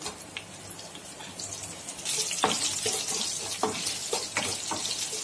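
Slit green chillies frying in hot sesame oil in a pan. The oil sizzles faintly at first, then louder from about two seconds in, while a spoon stirring the tempering clicks against the pan several times.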